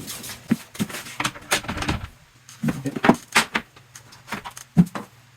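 Irregular knocks, clicks and light clattering as wooden door-stop moulding is handled and fitted against the door jamb, with a short quieter gap about two seconds in.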